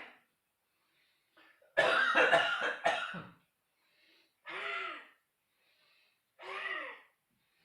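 A man coughing deliberately, forcing air out of his chest: a loud run of coughs about two seconds in, then two shorter, quieter coughs a couple of seconds apart. These are forced coughs of a postural-drainage exercise for clearing mucus from the bronchi.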